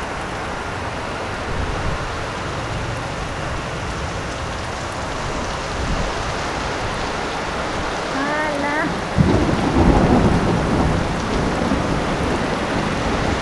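Heavy rain pouring steadily. About nine seconds in, a sudden loud thunderclap rumbles for a couple of seconds.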